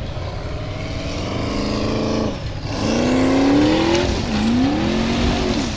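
Formula Offroad buggy's engine revving hard under load on a steep gravel climb. The pitch rises, drops sharply about two and a half seconds in, climbs again, dips briefly around four seconds and rises once more.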